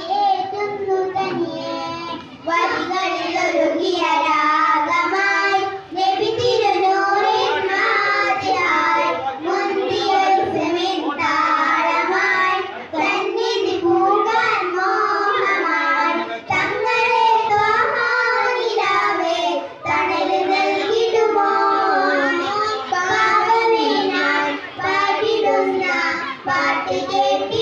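A child singing a song, a single voice carrying a wavering melody, with brief pauses for breath every few seconds.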